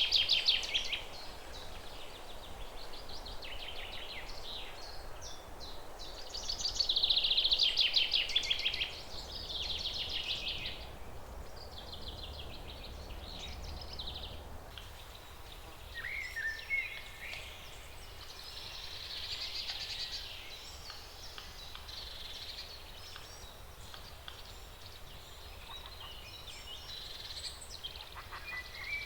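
Forest songbirds singing in overlapping phrases and rapid trills, the loudest trill about a quarter of the way in, over a steady hush of wind in the leaves.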